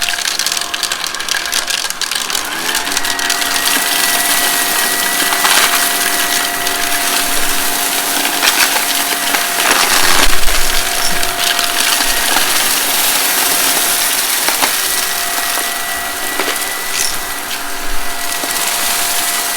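Vacuum cleaner running over carpet, its motor a steady whine, while crunchy debris is sucked up with a constant crackle of small clicks and rattles.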